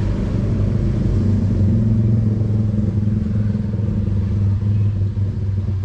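Parked bus's 2009 Hyundai diesel engine idling steadily, heard from inside the cabin as a low, even hum.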